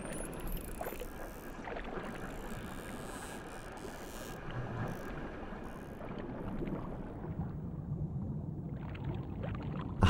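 Steady rushing water noise heard underwater, with a few faint knocks.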